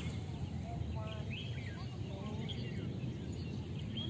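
Birds chirping with many short, quick calls over a steady low outdoor rumble.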